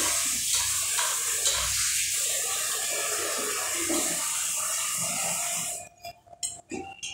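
Steady rushing, water-like noise that cuts off abruptly about six seconds in, followed by a few faint ticks.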